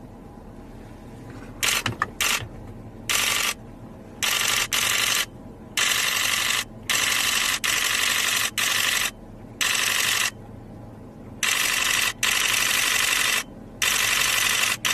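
Camera shutter firing in rapid continuous bursts, about a dozen runs that start and stop abruptly, each lasting up to about a second.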